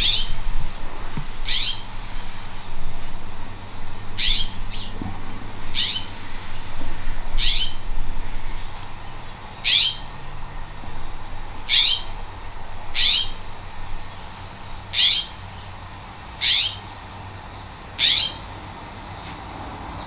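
California scrub-jay giving a series of about eleven short calls, each a quick downward sweep in pitch, roughly one every second and a half.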